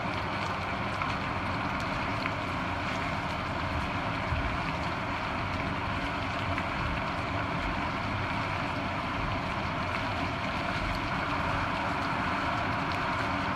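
Steady, even rushing noise, with a few faint soft clicks as tongs toss penne in cream sauce in a frying pan.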